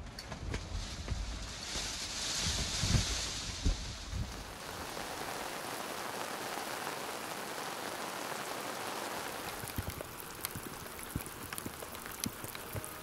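Steady rain falling, with individual drops ticking and splashing on the surfaces around, and sharper drip clicks near the end.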